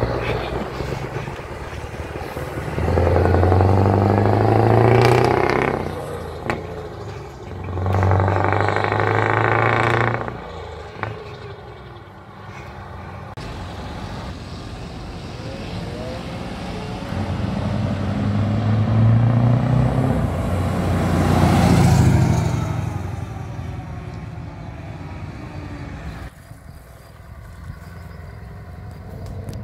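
Scania V8 truck engines on open exhaust pipes. First one pulls hard twice, the pitch rising through each gear with a short break between. Then another comes up, swells loudest as it passes close and drops in pitch as it moves away.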